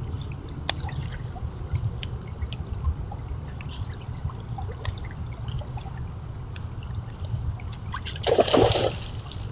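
Shallow creek running steadily, with scattered small ticks. About eight seconds in there is a short, loud splash as a white-tailed deer bounds through the water.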